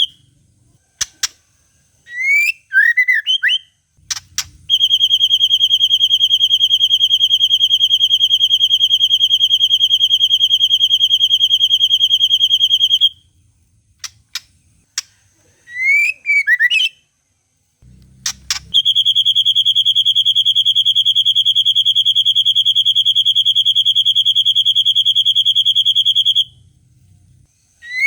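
White-rumped shama (murai batu) song: a few sharp clicks and short up-and-down whistled phrases, then two long, even, very rapid trills held at one high pitch, each about eight seconds long, in the 'long cililin' style.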